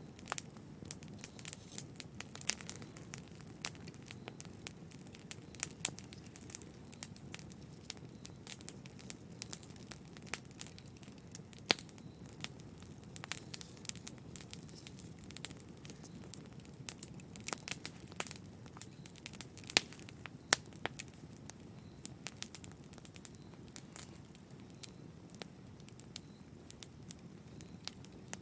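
Wood fire burning in a fireplace: a low steady rumble of flames with many sharp, irregular crackles and a few louder pops.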